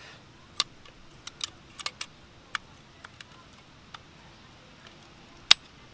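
Scattered light metallic clicks and taps as the brake pads are worked off the rear brake caliper of a Mk5 VW GTI, with one sharper click about five and a half seconds in.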